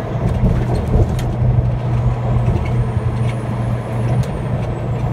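Truck engine droning steadily at highway cruising speed, heard inside the cab, with tyre and road noise and a few light clicks.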